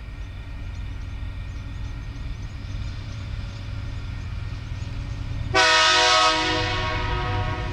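TasRail TR class diesel-electric locomotive approaching with a low engine rumble, then sounding its horn once about five and a half seconds in as it nears a level crossing. The horn starts suddenly, is loudest for under a second, then fades.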